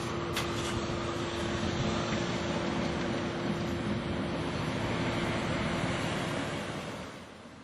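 Electric commuter train passing through a level crossing: a steady rush of wheels on rail with a low steady hum and a couple of sharp clicks early on, fading away near the end.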